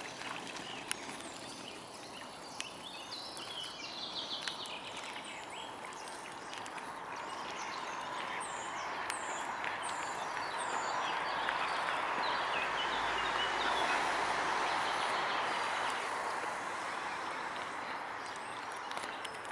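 Outdoor background noise, an even rush that swells over several seconds to a peak about two-thirds of the way through and then eases, with small birds chirping faintly and a few light clicks.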